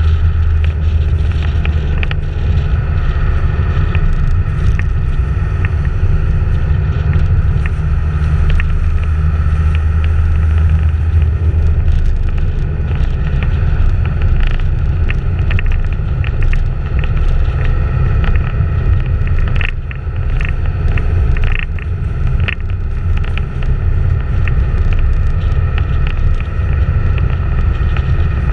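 Wind buffeting the microphone of a camera moving at road speed, a heavy steady rumble mixed with tyre and road noise, with a few sharp clicks about two-thirds of the way through.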